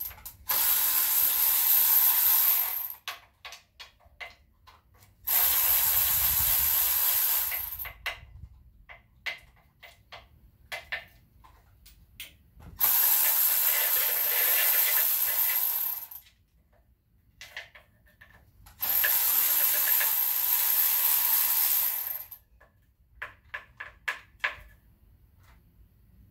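Handheld power tool run in four bursts of about three seconds each, with a steady whir and high hiss, spinning out bolts during an engine teardown; small metallic clicks and handling between bursts.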